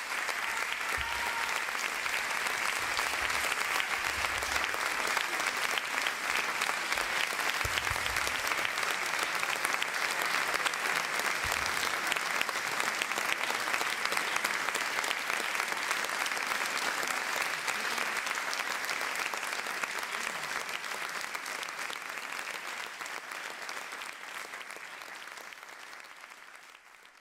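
Theatre audience applauding: dense, steady clapping from a large crowd that fades out over the last few seconds.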